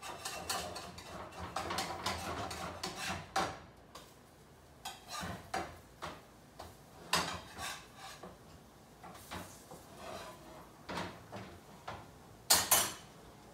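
A spatula scraping and clinking against frying pans as pancakes are turned: scattered short scrapes and taps, with a louder clatter near the end.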